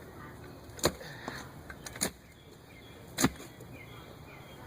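Post hole digger blades jabbing into soil, three sharp strikes about a second apart.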